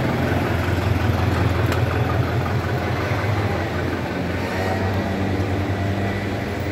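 Steady low rumble of motor traffic, engine noise of a car or other vehicle running nearby.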